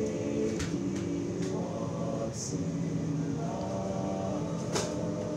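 An a cappella group singing in harmony, several voices holding long chords that change every second or so, with a few short hissy 's' sounds between notes.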